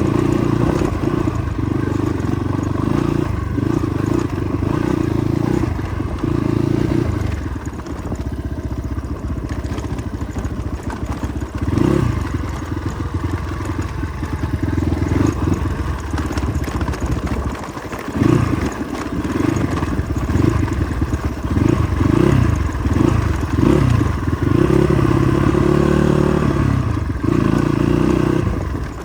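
Motorcycle engine running under way on a rough off-road track, its pitch rising and falling often as the throttle is opened and closed, with frequent knocks and rattles.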